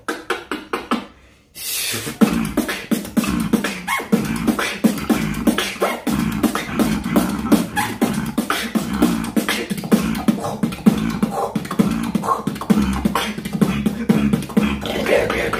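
Human beatboxing into a close microphone: a few sharp mouth clicks, then from about a second and a half in a fast, unbroken beat of percussive mouth sounds over a steady low tone.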